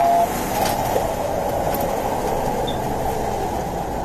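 Steady engine and wind noise of a police aircraft, heard through the crew's radio and intercom audio; a short steady radio tone cuts off just after the start.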